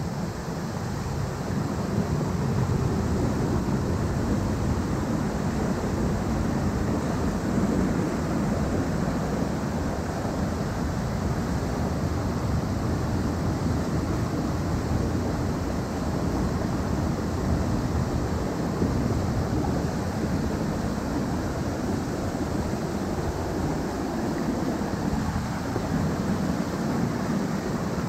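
Mountain stream rushing over rocks and small cascades: a steady, even sound of running water.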